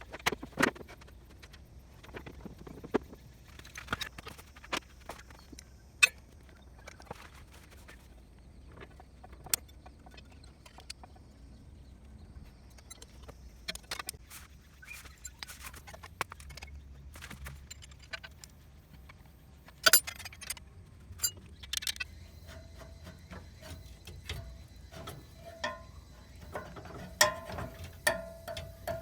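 Irregular metallic clinks and knocks of tools and parts being handled during work on a kei truck's transmission, over a low steady hum. A steady mid-pitched tone comes in about three-quarters of the way through.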